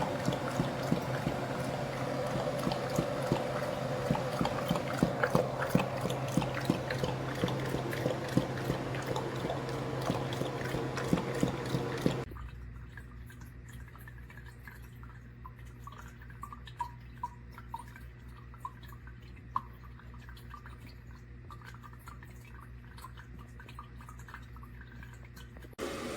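Water trickling and dripping in a PETLIBRO 8 L capsule dog water fountain, with a low steady hum under it. About halfway through the sound drops suddenly to a much quieter hum with only a few faint drips.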